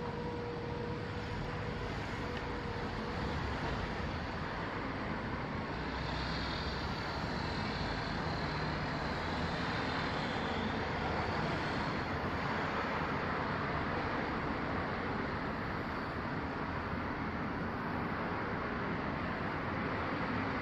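Steady outdoor background noise, a low rumble with hiss and no firework bangs, growing slightly louder a few seconds in.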